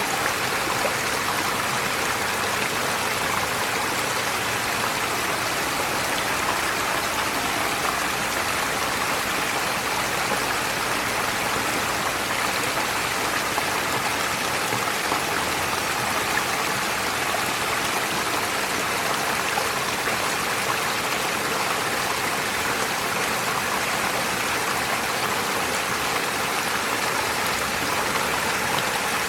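Shallow forest stream running over stones, a steady rushing burble.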